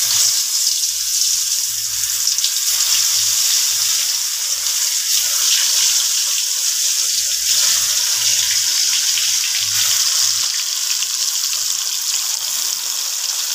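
Katla fish pieces, rubbed with turmeric and salt, sizzling loudly in hot mustard oil in a steel kadai. The sizzle starts suddenly as the first piece drops into the oil and stays steady as more pieces are added one by one.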